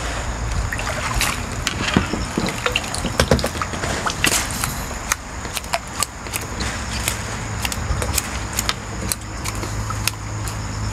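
Water splashing and dripping as a crucian carp is scooped from the pond in a landing net and lifted out. Many short clicks and taps are scattered throughout.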